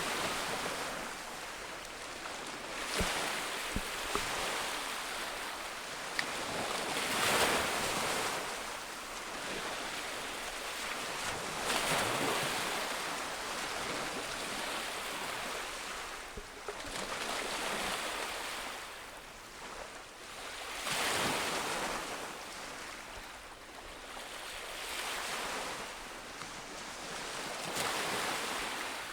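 Ocean waves breaking on a beach, a louder surge every four to five seconds with a steady wash of surf in between.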